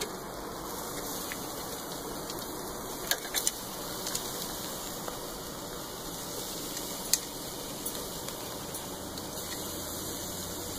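Meat sizzling over a charcoal grill, a steady crackling hiss. A few sharp clicks of the metal tongs against the grill grate come in a quick cluster about three seconds in and once more about seven seconds in.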